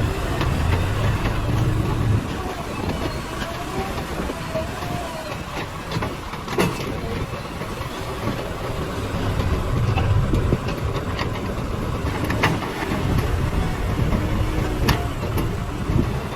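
JCB 3DX backhoe loader's diesel engine working under load while digging and loading soil, its level rising and falling, with a few sharp knocks.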